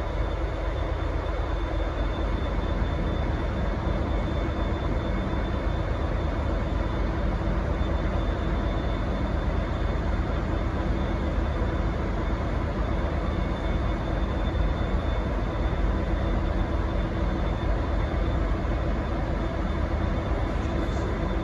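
V/Line N class diesel-electric locomotive idling at the platform: a steady low engine rumble with a constant high whine over it, unchanging throughout.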